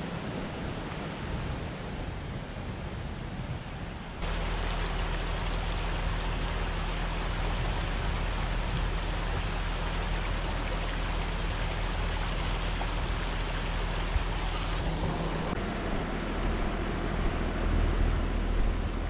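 Wind buffeting the microphone for about four seconds, then a sudden change to the steady rush of a shallow stream running over rocks, with a low steady hum underneath.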